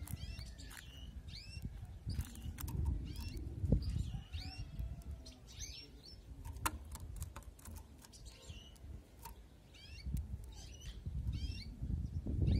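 Domestic canary chirping: short rising-and-falling call notes, often in pairs, repeated about once a second, with a few seconds' pause past the middle.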